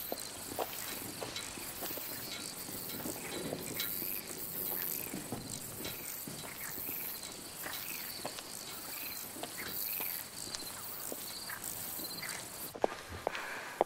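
Footsteps crunching slowly on dry, stony ground while insects chirp in a regular, pulsing rhythm. Near the end the chirping stops and a few sharper, louder steps are heard.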